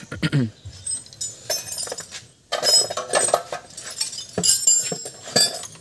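Steel valvetrain parts of a Nissan A12 engine clinking and rattling as the rocker arm assembly is lifted off the cylinder head during a top overhaul. A cluster of sharp metallic clinks comes in the middle, and a few more come near the end.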